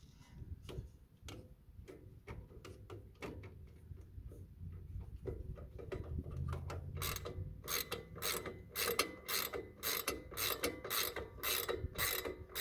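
Hand ratchet wrench clicking as it is worked back and forth on a nut: sparse clicks at first, then from about halfway a steady run of click bursts about two a second as the strokes speed up.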